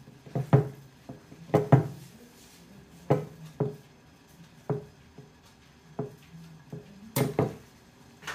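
Hands working a heap of steamed vermicelli on a large ceramic platter, lifting and dropping it, with a series of irregular soft knocks about a second apart.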